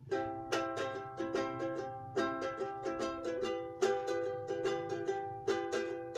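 Ukulele strummed in a steady rhythm of chords, the chord changing a few times.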